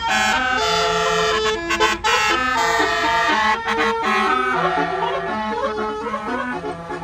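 Basuri musical air horn on a tour bus playing a tune of held notes that step up and down in pitch every few tenths of a second, getting somewhat softer near the end.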